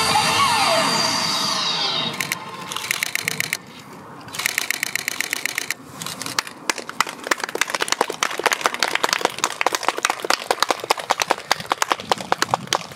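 The last chord of a song rings out, then from about two seconds in an audience claps.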